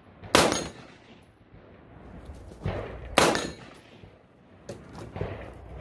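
AR-15 rifle fired from a bench rest: two sharp shots about three seconds apart, each dying away quickly.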